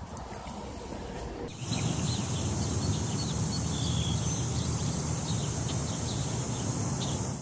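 Outdoor ambience: a steady high-pitched insect drone with short bird chirps scattered through it, over a low rumbling noise. It gets louder suddenly about a second and a half in.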